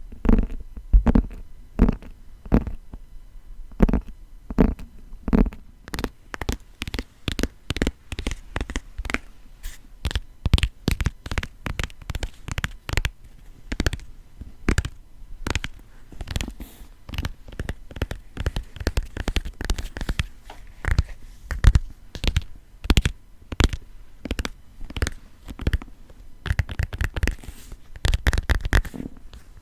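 Fingers tapping on the cover of a grimoire-style book. The taps are quick and irregular, some with a dull low thud, at first a couple a second, then faster and denser, with a rapid flurry near the end.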